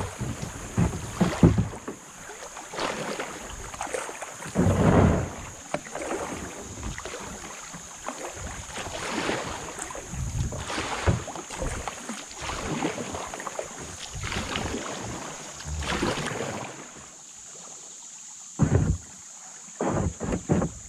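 Kayak paddle strokes splashing, with water washing along the hull, in uneven swells every second or two and a few sharper splashes near the end. A steady high-pitched hiss runs underneath.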